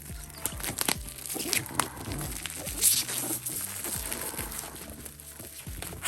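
A boxed card game being opened by hand: packaging crinkling and tearing, with scratches and small taps of handling and a louder rip about three seconds in.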